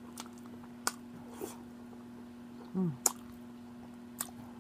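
Eating mouth sounds: a few sharp, wet lip smacks and clicks while chewing, with a short falling hummed 'mm' just before three seconds in. A steady low hum runs underneath.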